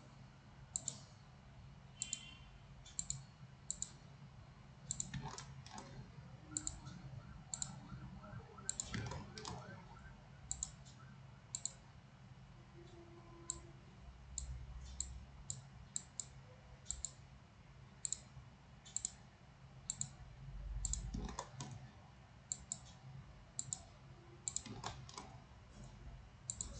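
Computer mouse clicking repeatedly at an uneven pace, about one to two clicks a second, each click placing a point with the MultiCut tool, over a faint steady low hum.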